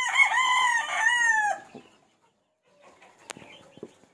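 A rooster crows once, a single call lasting about a second and a half, followed by a few faint knocks.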